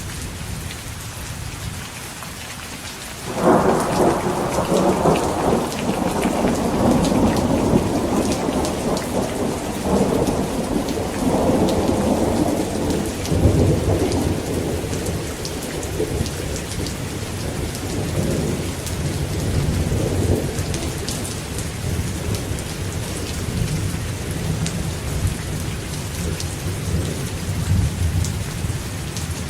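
Steady rain falling, with a loud thunderclap breaking about three seconds in. It rolls and rumbles on, dying away over the next fifteen seconds or so, and a low rumble lingers under the rain.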